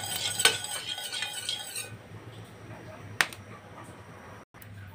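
Metal ladle scraping and clinking against a stainless steel pan as it swirls heating cooking oil, for about two seconds, then a single sharp clink about three seconds in. The oil is not yet sizzling.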